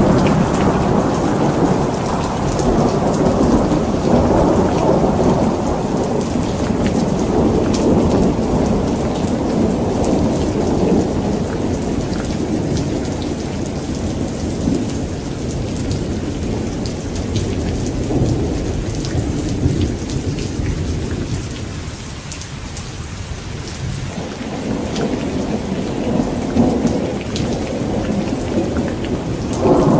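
Steady rain with rolling thunder. A long rumble dies away over the first twenty seconds or so, and another roll builds near the end.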